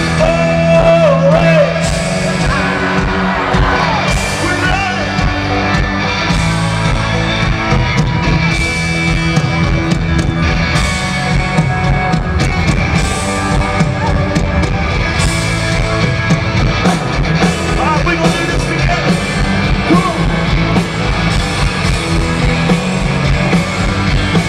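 Live country band playing loud over the concert sound system, with drum kit, electric guitar and a sung vocal, heard from within the crowd.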